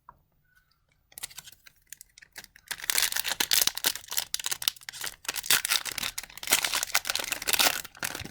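Plastic-foil hockey card pack wrapper being torn open and crinkled: a dense, rustling crackle that starts about three seconds in and stops just before the end.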